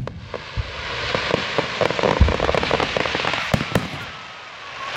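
Aerial fireworks bursting: a dense, rapid crackling fills the first few seconds, broken by a few sharp booms, then dies away near the end.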